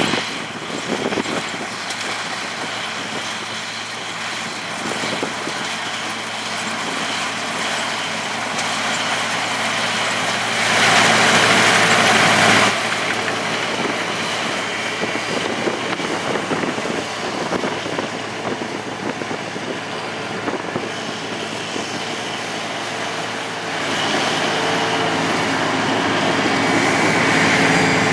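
Heavy diesel harvesting machinery running with a steady low hum. A loud rushing noise lasts about two seconds near the middle, and the machine grows louder near the end.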